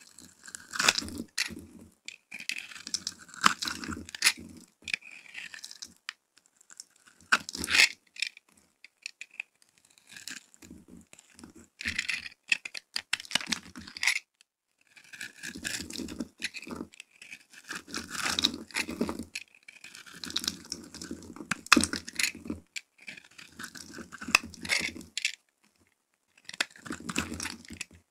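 A flat metal blade scraping shavings off a bar of soap: crisp, scratchy strokes in runs of a second or two, with short pauses between.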